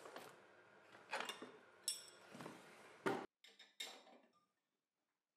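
Faint metallic clinks and knocks of steel wrenches handled from a wooden tool drawer and set onto a table saw's blade arbor: a handful of short knocks over about three seconds, one with a brief ringing clink.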